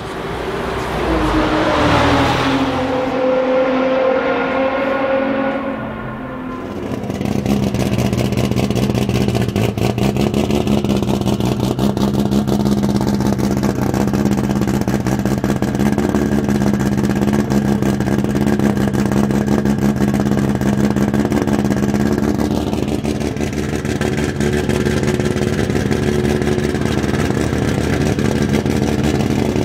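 An engine note falls away in pitch over the first few seconds. Then the BMW E30 M3's swapped-in Toyota Supra inline-six idles steadily through its side-exit exhaust, with a faint high whistle that drifts up and back down partway through.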